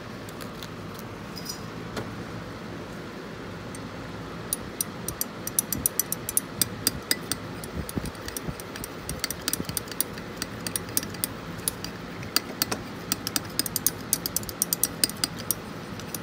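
A metal stirrer clinking against a glass measuring cup as melted soft plastic is stirred: rapid, irregular clinks starting about four seconds in, over a steady low hum.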